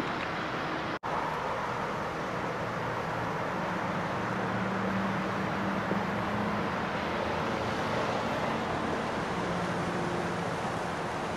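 Steady rushing noise of road traffic on a freeway, with a low engine hum underneath. The sound drops out for an instant about a second in.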